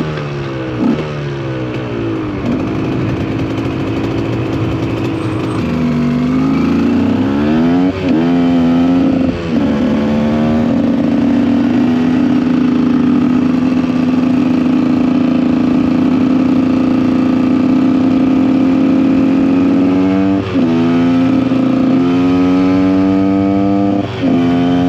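KTM 125 EXC two-stroke single-cylinder engine under way: the revs fall off at first and hold low for a few seconds, then climb through the gears with a brief break in the sound at each upshift. It holds a steady high rev for about ten seconds, then shifts up twice more near the end.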